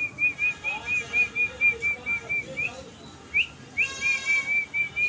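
A person whistling a quick run of short repeated notes, about five or six a second, to call puppies over. After a brief gap come a couple of sharp upward-sliding whistles, then a second quick run.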